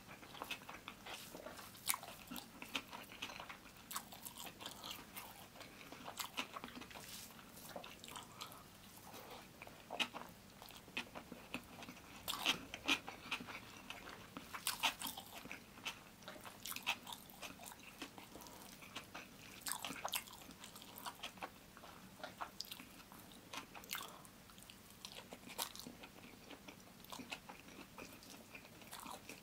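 Close-miked chewing of chicken biryani eaten by hand: a stream of short, irregular mouth clicks and crunches, the busiest stretch in the middle.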